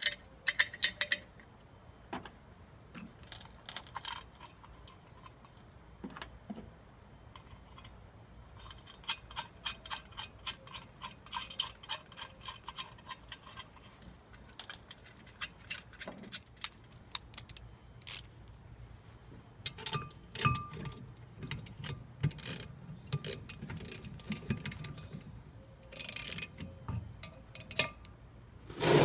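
Steel bolts and metal parts clinking and scraping as they are fitted, still loose, into a brake drum. There is a long string of sharp clicks, a quick regular run of ticks in the middle, and a few louder scrapes near the end.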